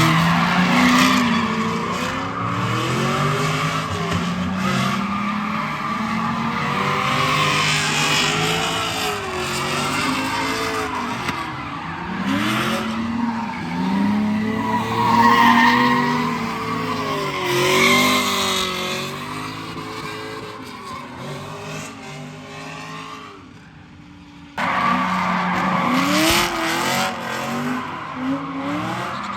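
Cadillac CTS-V's LS2 V8 revving up and down again and again while drifting, with tyres squealing. The sound dies down about three-quarters of the way through, then cuts back in abruptly with the engine revving again.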